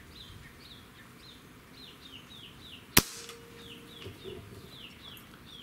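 A single sharp snap about three seconds in as the Gamo Urban .22 PCP's CAT trigger is drawn through by a pull gauge and breaks, releasing the action. Birds chirp repeatedly behind it.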